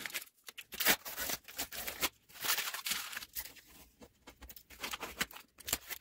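Blue painter's tape being peeled off the cardboard frame of a pleated air filter and the box fan it is taped to, in short irregular rips and rustles.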